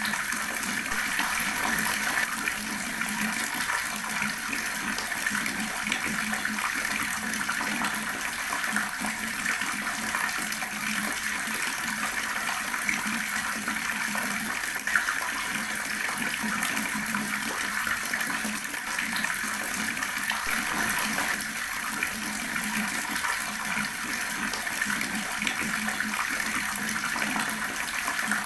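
Water tap left running, a steady continuous stream of splashing water, with a single brief splash or knock about halfway through.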